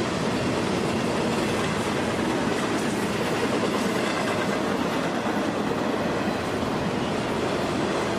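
Freight train cars rolling past on the track: a steady rumble and clatter of wheels on rail, holding an even level throughout.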